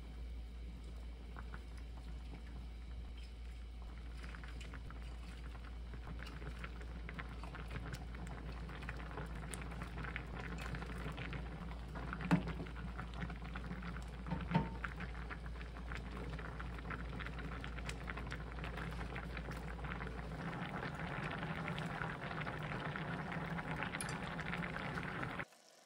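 Thick gangdoenjang (soybean-paste stew) simmering in a saucepan, with many small bubbling pops that thicken toward the end. A ladle knocks against the pan twice around the middle, over a low hum that stops about twenty seconds in.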